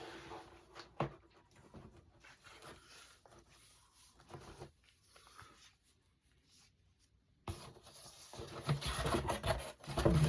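Cardboard box and packing paper being handled and rubbed: faint, scattered rustles and scrapes, a near-silent lull, then louder rustling and scraping starting about seven and a half seconds in.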